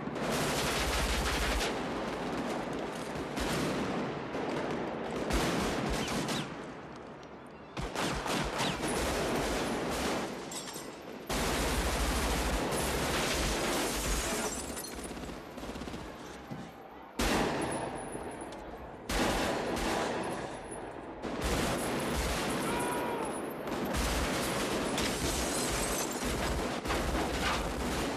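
Automatic rifle fire in long, nearly continuous bursts, with a few brief lulls.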